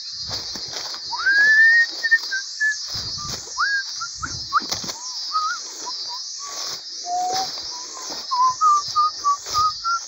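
A steady, high insect chorus that wavers up and down about once a second, with a series of clear whistled notes and upward-sliding whistles over it. Footsteps rustle through leaf litter and undergrowth.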